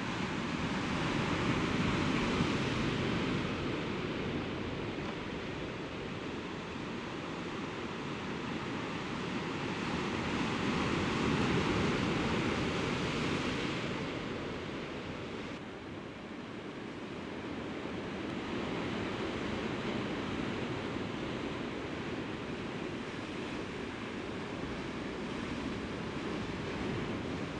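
Sea surf washing against shoreline rocks: a steady rushing that swells and ebbs, loudest a couple of seconds in and again around the middle.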